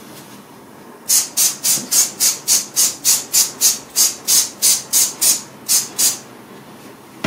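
Trigger spray bottle squeezed rapidly, about sixteen short sprays at roughly three a second, misting cleaner onto a stove's glass door.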